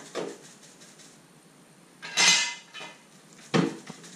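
Metal clanking and scraping from a steel exhaust side pipe being forced onto the header collector, in four separate knocks; the loudest, about two seconds in, is longer and rings briefly.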